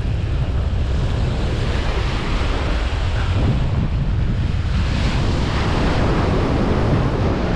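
Shore-break waves breaking and washing up a sandy beach, with wind buffeting the microphone into a steady low rumble. The wash of a breaking wave swells louder about five seconds in.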